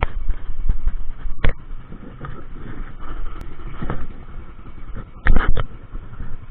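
Motorbike engine idling with a steady low rumble, broken by several loud knocks and rattles: one at the start, one about a second and a half in, and a quick cluster near the end.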